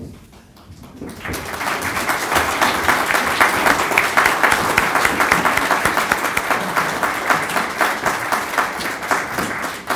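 Audience applauding in a hall: the clapping starts about a second in, quickly fills out into a dense, steady round, and stops suddenly near the end.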